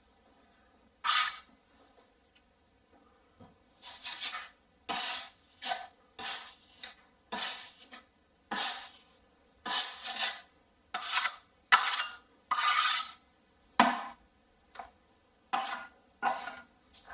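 Metal taping knife scraping and spreading GIB finishing compound over a drywall patch in short, separate strokes, roughly one a second.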